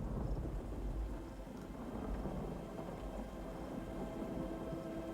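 Low, steady rumbling noise aboard a catamaran under way at sea, with faint music coming in about halfway through.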